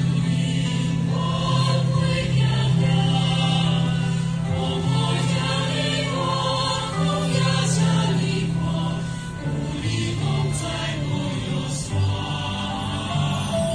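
Choir singing live over an instrumental accompaniment, with a sustained bass line underneath that moves to a new note every second or two.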